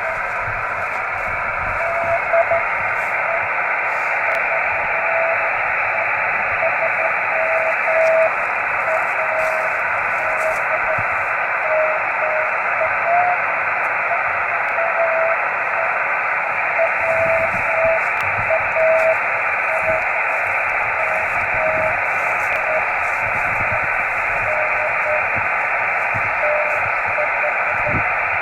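Receiver hiss from a homebuilt 10 GHz microwave station, with a Morse code (CW) signal coming through as a keyed tone of dots and dashes. The tone's pitch wanders slightly, as the station's frequency is not stable.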